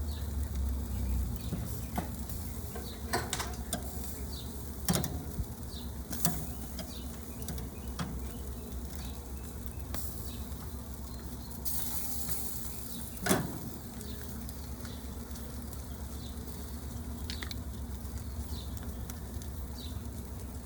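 Chicken cooking on a barbecue grill: scattered sharp pops and crackles over a steady low hum, with a short hiss about twelve seconds in and the loudest pop just after.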